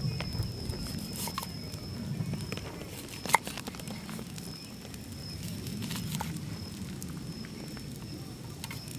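Cleaver cutting through limes and knocking on a wooden chopping board: a few sharp knocks, the loudest a little over three seconds in, over a steady high thin tone.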